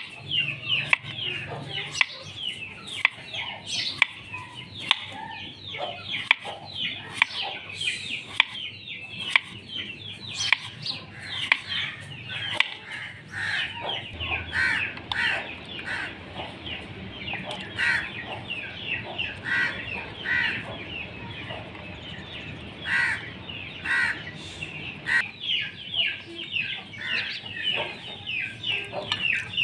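Chickens calling in the background, many short high calls without pause, under repeated sharp clicks of a kitchen knife cutting through potato and tapping a wooden chopping board.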